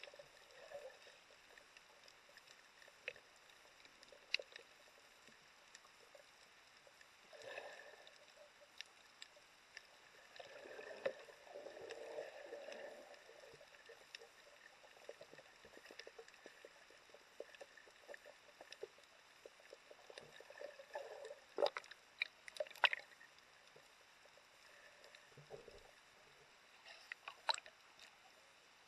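Muffled underwater sound picked up by an action camera submerged in its waterproof housing: faint water movement swelling now and then, with scattered sharp clicks and knocks, the loudest a little past the middle.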